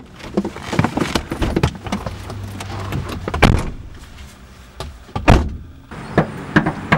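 Car doors opening and shutting, with clicks and rustling as people climb out and two loud door thumps. After a short pause, a few sharp knocks on a front door near the end.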